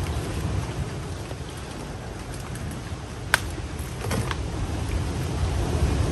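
A low, uneven rumble, with one sharp click about three seconds in and a few lighter ticks a second later.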